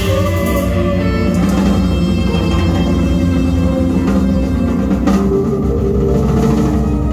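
A small band playing live: drums, electric guitar and keyboard, with sustained saxophone notes over them.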